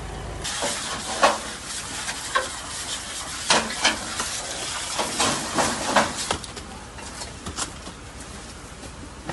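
Fire in the burning wreckage of a brick house crackling and hissing, with irregular sharp cracks and snaps. A low hum stops abruptly about half a second in.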